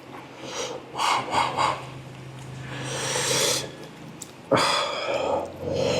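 Close-up eating sounds: three quick wet mouth smacks about a second in, then longer hissing sucks of breath and slurps while chewing braised pork leg.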